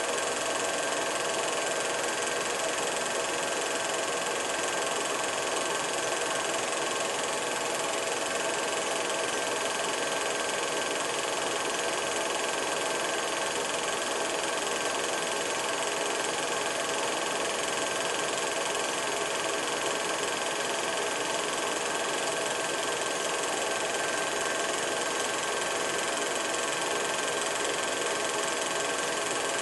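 Steady, unchanging hiss with a few faint steady hum tones and no distinct events: the background noise of an old film transfer.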